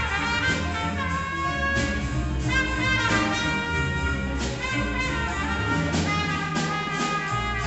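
School jazz band playing a blues: saxophones and brass carry the melody over upright bass and piano.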